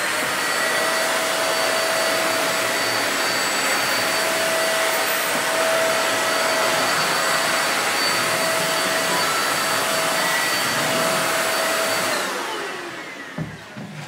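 A Deerma DX700 600 W corded stick vacuum runs steadily with a high motor whine over a dense rushing air noise. About twelve seconds in it is switched off, and the motor spins down with its whine falling in pitch as it fades.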